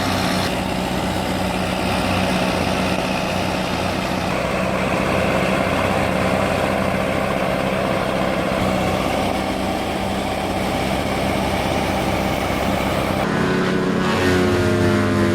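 Heavy diesel machinery engine running steadily. About thirteen seconds in, the sound changes to a different engine with a steadier, more evenly pitched hum.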